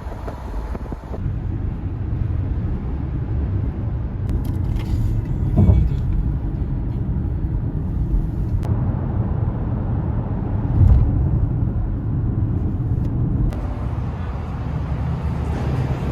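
Steady low rumble of a moving vehicle, with two brief louder bumps about six and eleven seconds in.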